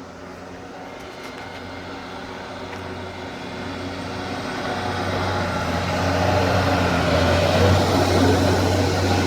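Snowplow truck approaching: a low engine hum with the rushing noise of plowed snow, growing steadily louder and peaking near the end.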